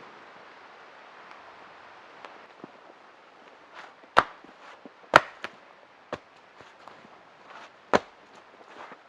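Wood being chopped: about five sharp, irregular blows, starting about four seconds in, over a soft steady hiss.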